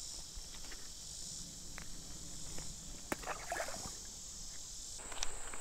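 Steady high-pitched drone of insects singing. It thins to a single higher whine about five seconds in. There are a few faint clicks and a short rustle about three and a half seconds in.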